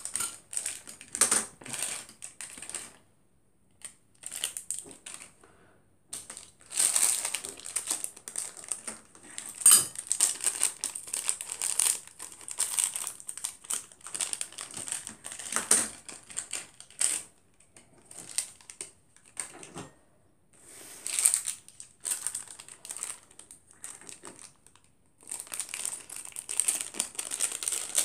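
Crunching of dry chocolate cereal squares being chewed, in irregular bursts of crackly crunches with short pauses between them.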